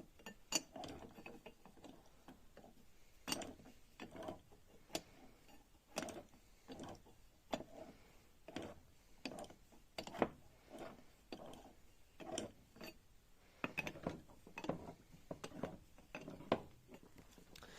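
A ratchet wrench clicking in short, uneven bursts as it turns an oil pump by hand, a test that the pump still delivers oil.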